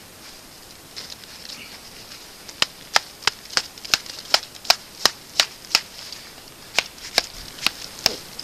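Quick, even footsteps crunching in frozen snow, about three sharp steps a second, starting a couple of seconds in.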